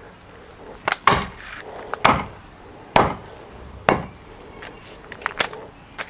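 Large knife chopping through raw chicken onto a wooden block: about five sharp chops roughly a second apart, then a couple of lighter knocks near the end.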